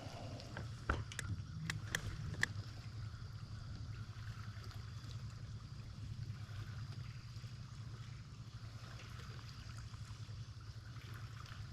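Water lapping against a small fishing boat over a steady low hum, with a few sharp clicks in the first couple of seconds.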